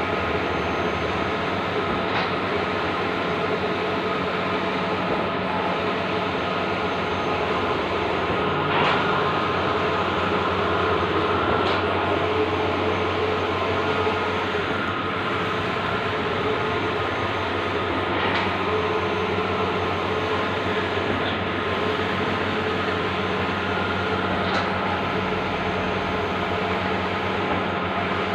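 Bluewin large-format outdoor digital printer running: a steady mechanical hum and hiss, with a faint click about every three seconds.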